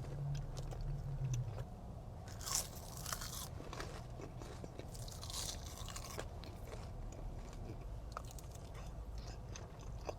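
Close-miked biting and chewing of a jalapeño ranch club sandwich, with two louder crunchy bites about two and a half and five and a half seconds in and softer wet chewing between.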